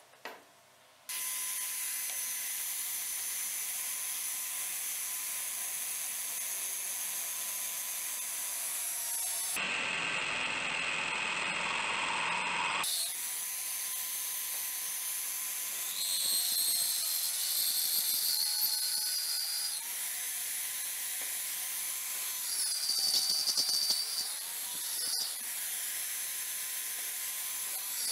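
Drill press running, its twist bit boring into a stainless steel hex nut with a steady whine and hiss that start suddenly about a second in. High squeals from the bit cutting the steel come in twice in the second half.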